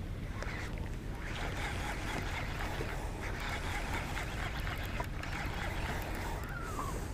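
Steady wind buffeting on the microphone and water splashing while a hooked redfish is fought on rod and reel. A short, falling bird call comes near the end.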